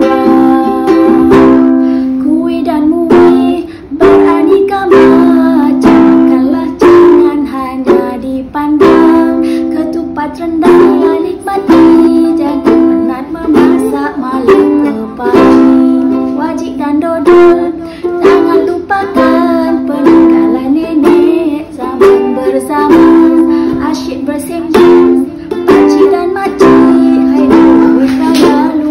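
A woman singing to her own strummed ukulele, with a steady strumming rhythm throughout.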